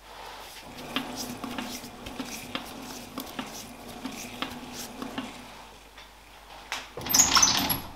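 Light metallic clicks and clinks from a metal lathe while a shaft held in a steady rest is checked against a dial test indicator, over a low steady hum. About seven seconds in comes a louder, brief rattling clatter.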